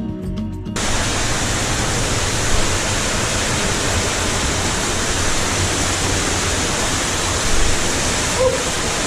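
Music cuts off under a second in and gives way to the steady, loud rush of a small waterfall in a cave.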